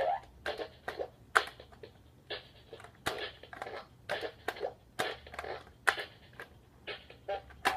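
Bop It Heads Up electronic toy in play: a quick run of short electronic sound effects and sharp plastic clicks, about three a second.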